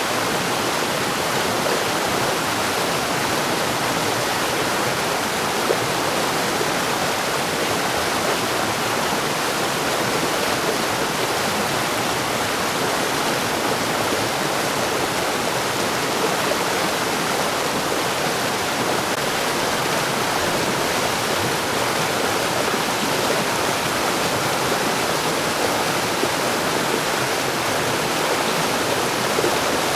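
Mountain stream rushing and splashing over rocks, a steady, even flow of water.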